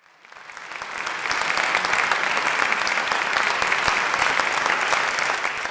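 A crowd applauding, fading in over about the first second and then holding steady.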